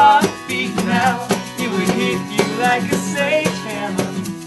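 Live acoustic band playing: strummed acoustic guitar with a saxophone melody over it, and tambourine and shakers keeping the beat.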